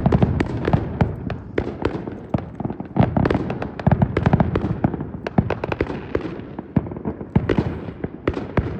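Fireworks going off: a dense, irregular crackle of sharp pops and bangs, several a second, over a low rumble.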